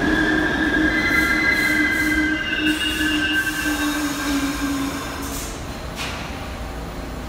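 R62A New York subway train braking to a stop, with a squeal of several steady tones over the running rumble that fades out about five seconds in as the train halts. A single short, sharp noise follows about a second later.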